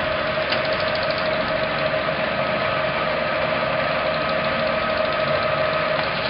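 Hardinge HLVH toolroom lathe running, a loud, steady machine noise with an even whine.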